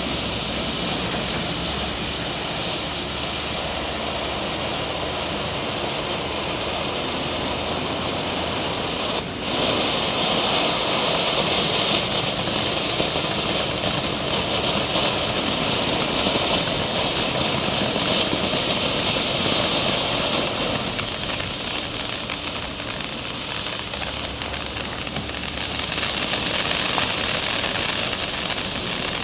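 Standard Fireworks 'Escalation' fountain firework burning, its spray of sparks making a steady rushing hiss. The hiss swells about ten seconds in, eases, then swells again near the end.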